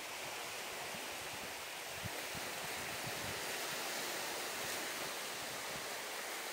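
Steady wash of surf on a beach, an even hiss without pauses.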